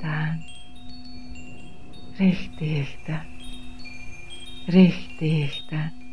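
Chimes ringing scattered high notes over a steady low drone, while a voice utters short non-word light-language syllables in three brief clusters: at the start, about two seconds in and about five seconds in.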